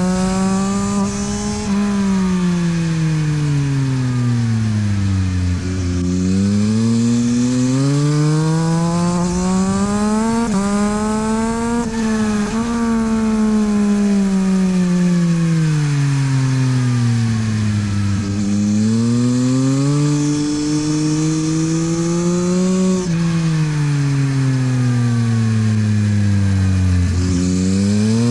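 Yamaha MT-09 SP's three-cylinder engine through a LeoVince exhaust at track pace. The revs climb hard for several seconds, then fall away for several seconds as the bike accelerates and slows for corners, three times over.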